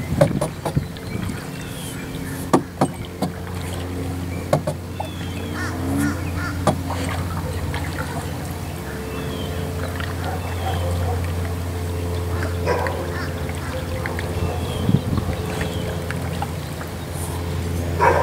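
Double-bladed paddle stroking through the water beside a plastic canoe, with sharp knocks now and then as the paddle strikes the boat, mostly in the first several seconds. Birds call at times over a steady low hum.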